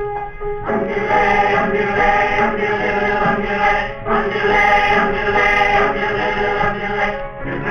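A single held note sounds at the start. About half a second in, a high-school choir comes in singing together.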